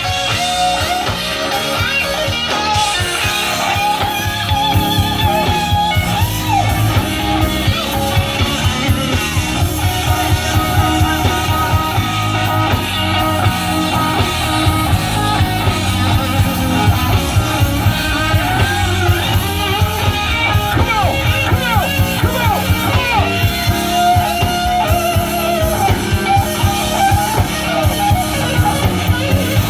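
A band playing: guitar over bass and drums, with a steady regular beat.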